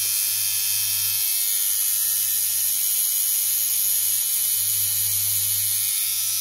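Dan Kubin DMC V2 rotary tattoo machine running free at about 6 volts with a cartridge needle fitted: a steady, even buzz. The clip cord polarity is reversed, which gives a more subdued, mellow hit than with the positive up.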